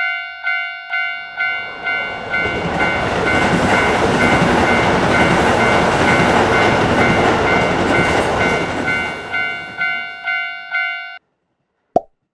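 Japanese level-crossing warning bell ringing about twice a second, with a train passing through. The train's rushing noise swells about two seconds in and fades toward the end. The bell cuts off suddenly, followed by a single short click.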